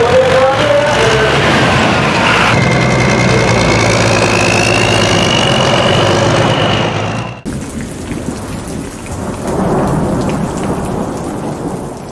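A John Deere farm stock pulling tractor's diesel engine at full power hauling a weight-transfer sled, with a high whistle that climbs in pitch. It cuts off suddenly about seven seconds in, and a quieter noisy rumble follows.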